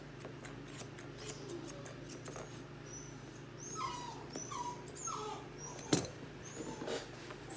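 English Cocker Spaniel puppy whimpering: several short falling whines from about halfway in. Light clicks of scissors snipping come in the first couple of seconds, and one sharp knock about six seconds in, the loudest sound here.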